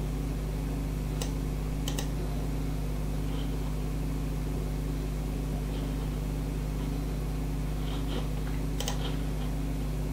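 Steady low electrical hum with a few short mouse clicks: one about a second in, a quick pair about two seconds in, and another near the end.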